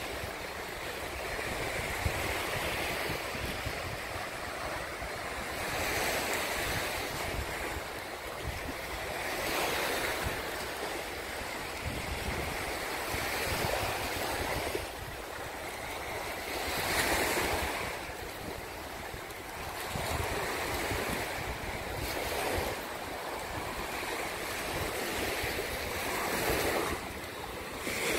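Small waves breaking and washing up on a sandy shore, the surf swelling and easing every few seconds, with wind buffeting the microphone.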